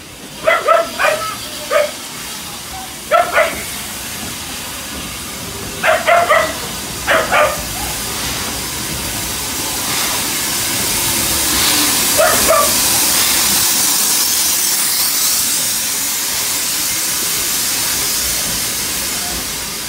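A dog barks in short clusters through the first half and twice more later, the barks the loudest sounds, while a WD Austerity 2-10-0 steam locomotive draws in. From about halfway its steam hiss swells and stays loud as the engine and coaches pass.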